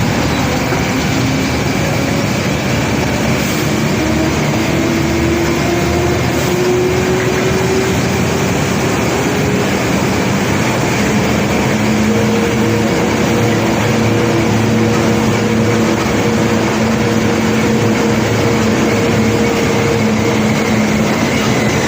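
Barge unloading machinery running loud and steady under a dense rumbling noise, with a hum that slowly rises in pitch over several seconds and then holds.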